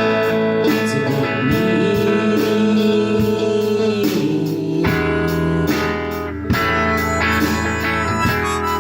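A small band jamming, led by guitar over a steady beat; a low bass part comes in about halfway.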